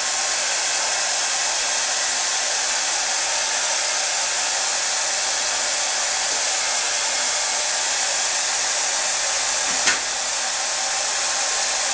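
Handheld hair dryer running steadily with a smooth, even blowing hiss. A single short, sharp sound cuts through it near the end.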